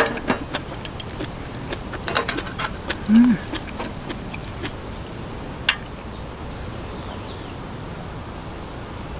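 Scattered light clicks and clinks of chopsticks and metal tableware being set down and handled, with a cluster of clinks about two seconds in and a short hummed 'mm' about three seconds in.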